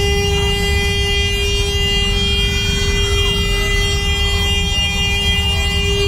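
A vehicle horn held down as one long, unbroken steady tone over the heavy rumble of street traffic.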